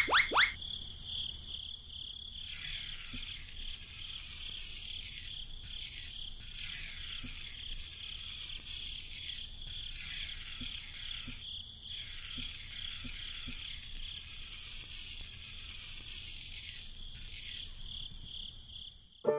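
Pencil tip scraping through fine sand as lines are drawn: a dry, scratchy hiss that breaks off briefly a little past halfway and again near the end. Under it runs a steady high-pitched tone, and a couple of quick rising whistles sound right at the start.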